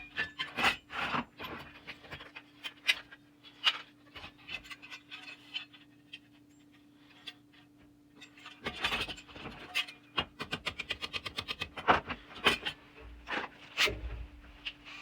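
Hand work on the parts of an antique pressed-toy tow truck: irregular scraping and rubbing strokes with sharp clicks, including a quick run of clicks about two thirds of the way through. A faint steady hum sounds underneath, dropping out partway and coming back near the end.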